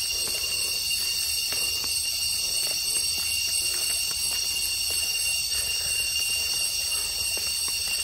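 A steady, high-pitched chorus of insects, several shrill tones holding without a break, with scattered faint taps underneath.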